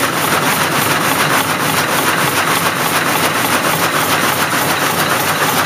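Satay skewer smoothing machine running steadily: a loud, even mechanical noise with a fast regular pulse, about five beats a second.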